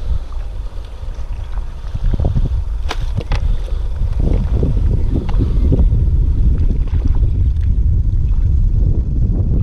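Wind buffeting the microphone with a heavy, gusting rumble, and water slapping against the kayak's hull. A few sharp clicks come about three seconds in.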